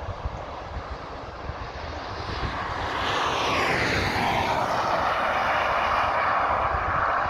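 Motorway traffic noise: tyre and engine rush that swells about halfway through as a vehicle sweeps past, its pitch falling, then a steady louder roar as more traffic approaches.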